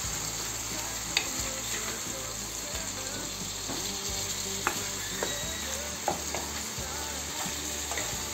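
Raw chicken pieces sizzling steadily in hot oil in a frying pan as they are stirred with a wooden spatula, which scrapes and knocks against the pan a few times.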